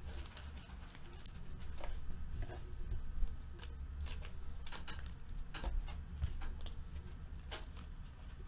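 Trading cards being handled and flipped through by hand: scattered soft clicks and flicks of card stock, over a faint low hum.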